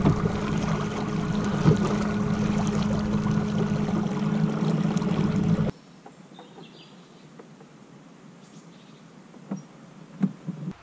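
Small boat's motor running steadily with a constant hum and whine over water noise, then an abrupt cut about six seconds in to quiet drifting ambience with two soft knocks near the end.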